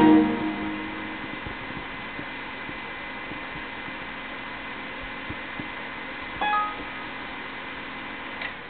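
Steady fan-and-drive hiss of a desktop PC as Windows XP shuts down, with the ringing tail of the Windows XP shutdown chime dying away at the start. A brief high tone sounds about six and a half seconds in.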